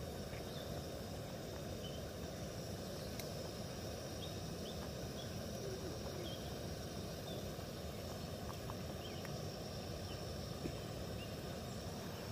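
Portable gas canister stove burning steadily under a pot of soup at the boil: an even, low roar of flame and simmering.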